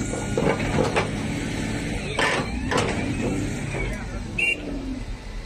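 Heavy diesel engine running steadily, with several sharp knocks and clanks over it, as a rock-laden dump truck is shoved into a levee breach.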